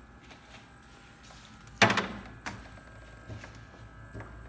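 A glass jug of water set down on a refrigerator shelf: one sharp clunk about two seconds in, then a lighter knock and a few small taps, over a low steady hum.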